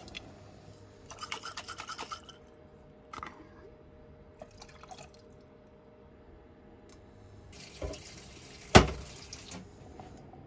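Tomato pasta sauce glugging and sloshing out of a glass jar into a stainless steel saucepan in quick pulses. Later the liquid left in the jar is shaken out into the pan, with one sharp clink of glass against the metal.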